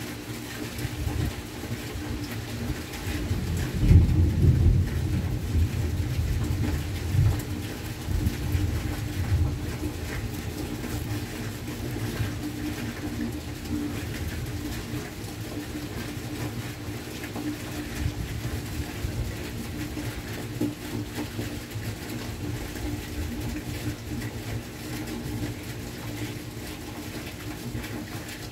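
Rolling thunder rumbles in about four seconds in and dies away over the next several seconds, over the steady hiss of rain.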